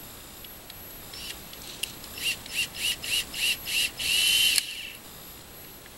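Cordless drill driving a screw into the wooden coop: six short trigger bursts, each a quick whine up and down in pitch, then one longer run that stops suddenly.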